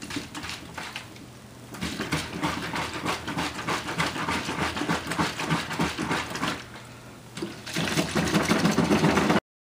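Biodiesel and wash water sloshing in a plastic soda bottle that is being shaken hard by hand, a rapid rhythmic churning. It comes in two bouts, the second starting near the end and cutting off suddenly. The shaking mixes the water wash through the fuel before it is left to settle and separate.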